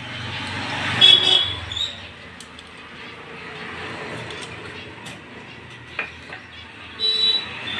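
Motor traffic rumbling by, with two short high-pitched horn toots, one about a second in and one near the end, and a sharp click near six seconds.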